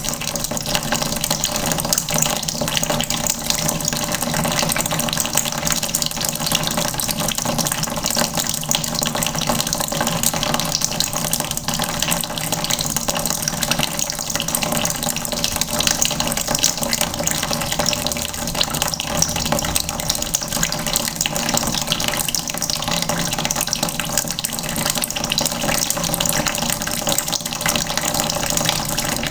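Tap water running steadily into a red plastic bucket, splashing without a break.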